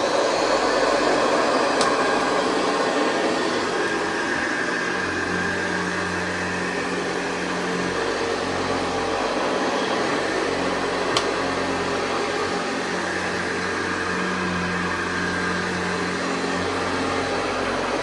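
1964 Hoover Convertible Model 584 upright vacuum cleaner running steadily: an even motor and fan rush with a low hum under it.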